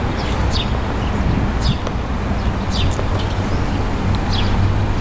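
Small birds chirping repeatedly, each call a short chirp falling in pitch, over a steady low rumble.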